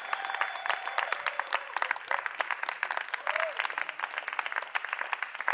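Audience applauding, a dense patter of individual hand claps, with a few voices mixed in.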